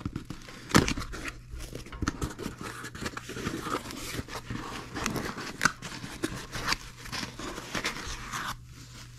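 A cardboard box being opened by hand: the taped flaps are pulled apart with a sharp snap about a second in, then cardboard scrapes and foam packing sheets rustle with irregular crinkles as they are lifted out.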